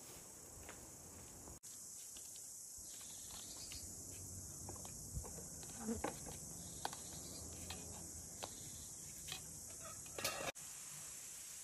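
Steady high chirring of insects, with a few light clicks and taps scattered through the middle and latter part.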